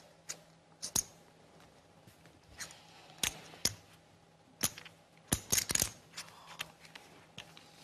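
Poker chips clicking against each other at the table: about a dozen sharp clicks at irregular intervals, with a quick run of clacks about five and a half seconds in.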